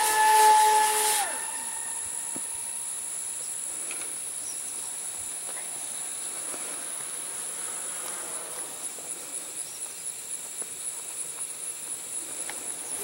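High-pitched whine of an RC speed plane's electric motor and propeller at speed, cut off about a second in. After that only a faint, steady high-pitched hiss remains.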